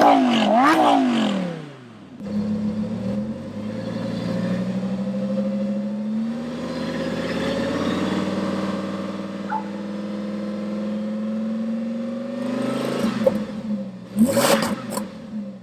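Lamborghini Huracán's V10 engine through its exhaust, blipped in quick revs that rise and fall for the first couple of seconds. It then settles into a steady low note that slowly climbs in pitch. Near the end come a few more sharp rev blips with loud cracks.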